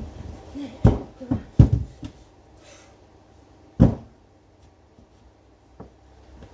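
A few separate dull thuds and knocks, the loudest about a second in and again near four seconds, with no engine running.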